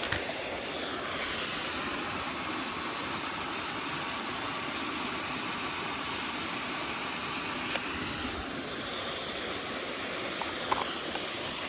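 Mountain stream water running steadily over rocks, an even rush, with a few faint clicks in the second half.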